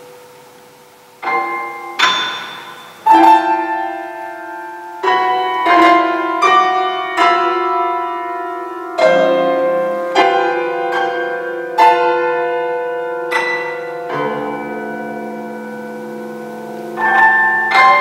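Grand piano prepared with screws, bolts, nuts, rubber and wood placed between its strings, played slowly: single struck notes and chords that ring and die away, the first coming about a second in after a quiet start.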